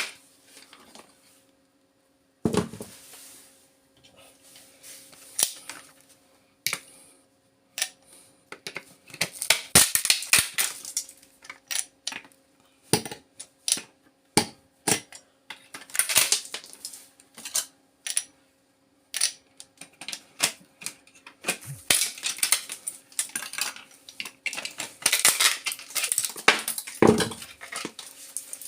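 Irregular clicks and metallic clinks of hand tools working on the metal parts and casing of an opened PS2 power supply, in scattered clusters, over a faint steady hum.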